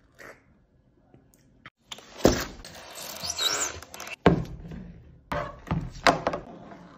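A live Tasmanian giant crab being handled, its hard shell and claws scraping and knocking against a foam box and a plastic cutting board, with several sharp knocks.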